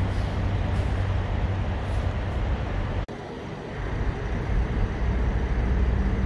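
Steady low hum and rumble of idling vehicle engines and road traffic. It breaks off abruptly about three seconds in, then a low engine rumble builds again.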